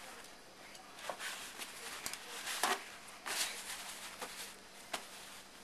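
Rustling and light handling noises of plastic wrapping and kitchen things being moved on a counter, in short irregular bursts with a couple of sharp clicks.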